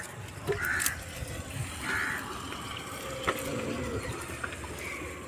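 Water sloshing and splashing in a metal pot as hands wash shallots in it.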